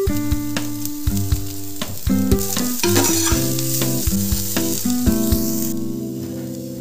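Sliced vegetables sizzling as they are stir-fried with a spatula in a hot pan, over background music of steady melodic notes. The sizzling cuts off suddenly near the end, leaving the music.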